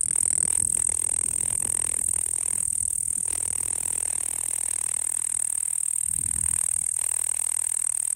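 Japanese bush katydid (yabukiri, Tettigonia orientalis) singing: one continuous, steady, high-pitched trill that does not break.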